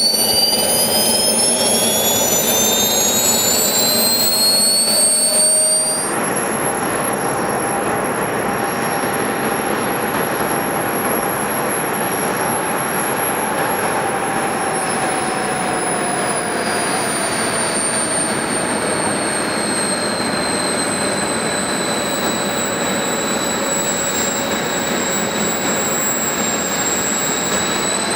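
Model jet turbines (four JetsMunt M166) on a large RC airliner running on the ground. At first several high whines climb together as the turbines spool up. About six seconds in the sound drops to a steady whine over a rushing hiss, which sags slowly in pitch and rises again near the end.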